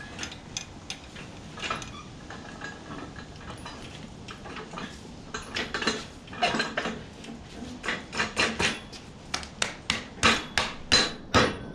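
Metal-on-metal clanks and clinks of a steel engine stand's mounting parts and tools knocking against a hanging engine block as it is fitted to the stand. Sparse knocks at first, then a quick, irregular run of clinks with a short ring through the second half.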